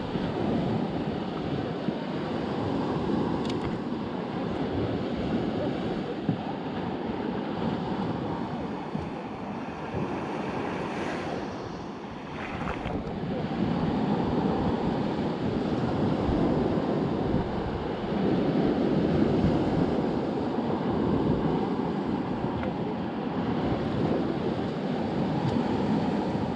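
Ocean water and wind buffeting the microphone: a steady rushing that eases off briefly about halfway through, then builds again.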